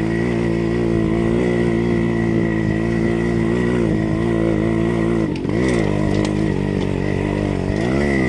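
Yamaha RX two-stroke single-cylinder motorcycle engine running steadily under load on a rough dirt track. About five seconds in, the revs fall and rise, then fall and climb again near the end as the throttle is eased and reopened.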